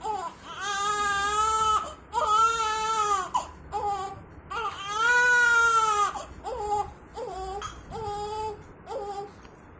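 Newborn baby crying: three long wailing cries in the first six seconds, then a run of four shorter, choppier cries.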